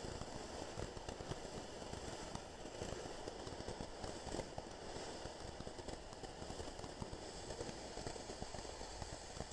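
Ground fountain firework spraying sparks: a steady fizzing crackle made of many tiny pops.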